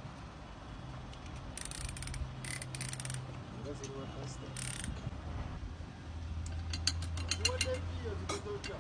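Ratchet wrench clicking in short, rapid runs as bolts are turned, with a faster run of clicks in the last couple of seconds.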